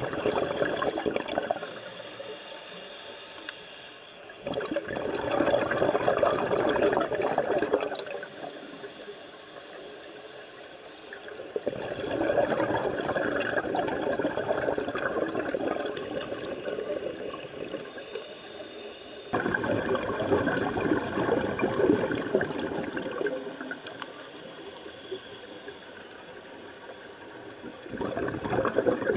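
Scuba diver breathing through a regulator underwater: a rush of exhaled bubbles every several seconds, each lasting a few seconds, with quieter in-breaths between.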